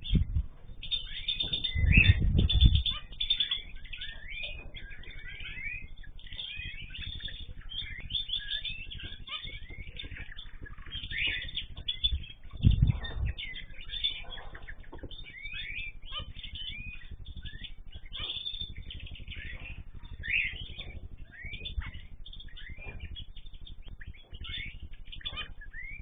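A mixed aviary of small cage birds, canaries and finches, chirping and calling together in a busy, continuous chatter of short notes. Two louder low thuds stand out, about two seconds in and again near the middle.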